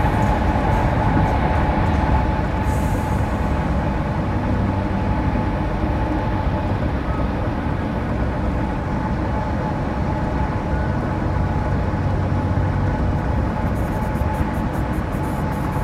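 Steady highway road noise of a vehicle cruising on the interstate: tyre roar and low drive-train rumble with a faint steady whine above it.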